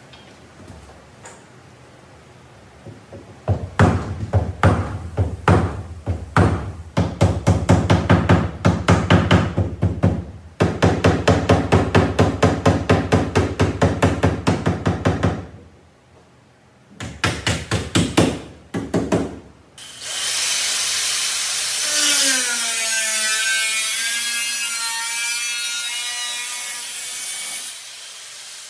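Angle grinder cutting into the steel of the car's roof rail at the A-pillar: a steady hissing screech for about eight seconds near the end, with a whine that drops in pitch. Before that, a long fast run of sharp strokes on the car's metal bodywork, then a shorter second run.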